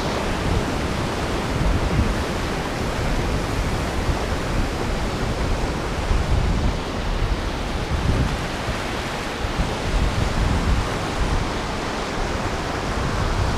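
Surf breaking and washing up the beach in a steady rush, with a fluctuating low rumble of wind on the microphone.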